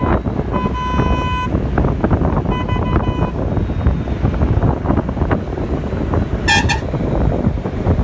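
Vehicle horn sounding twice, each blast about a second long, over the steady road rumble of a bus driving on a mountain road. A short, higher beep sounds about six and a half seconds in.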